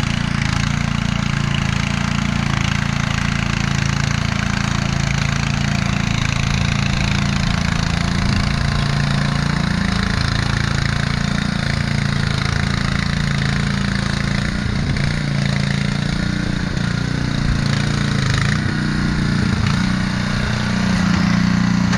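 Engine of small tracked earth-moving equipment running steadily, getting a little louder near the end.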